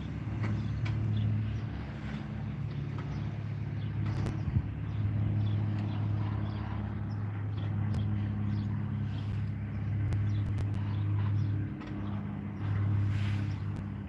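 Steady low engine hum, as of a motor vehicle idling, with a couple of brief dips in level.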